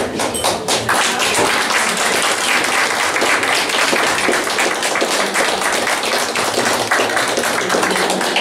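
Audience applauding: many people clapping hands together in a dense, steady round of applause.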